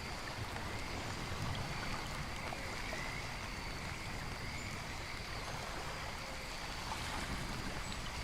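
Steady rain-and-nature background track: an even wash of water noise with faint, thin high tones running through it.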